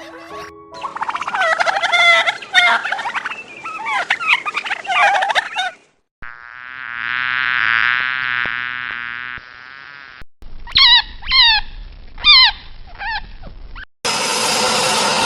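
A run of separate animal sound clips cut one after another: a few seconds of chirping calls, then a steady buzz lasting about three seconds, then three or four short falling whistle-like calls, then a noisy rasping sound near the end.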